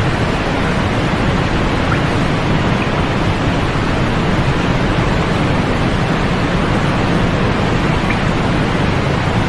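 Continuous sleep noise track: an even, unchanging hiss with no events, heavier in the lows and fading out above the upper mids.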